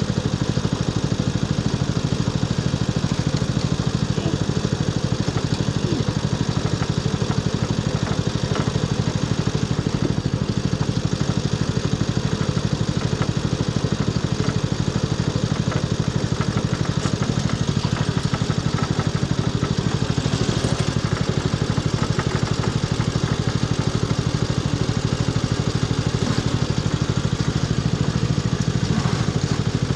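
Engine of a custom Craftsman riding-mower mud mower idling steadily, with no revving.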